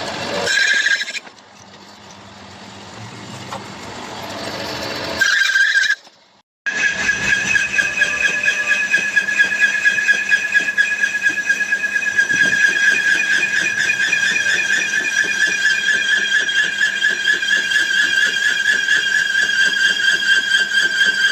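Lathe cutting a thread on a stainless steel pipe: a steady high-pitched squeal with a fast flutter. It breaks off for under a second about six seconds in, after a quieter stretch of rising noise, then carries on unchanged.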